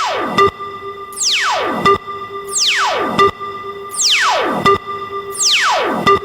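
Synthesized electronic sound effect: a fast falling pitch sweep repeated five times, about one every second and a half, each ending in a short blip, over a steady held synth tone.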